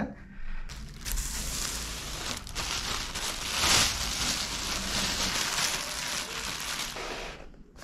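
Thin plastic carrier bag crinkling and rustling as hands open it and pull it off the cardboard pizza boxes inside. It starts about a second in, is loudest midway and fades out near the end.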